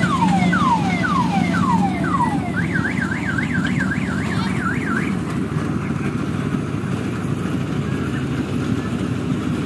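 Electronic siren sound effect: a run of falling wails, about two a second, switches about two and a half seconds in to a fast up-and-down warble that stops about five seconds in. A steady low hum and rumble runs beneath.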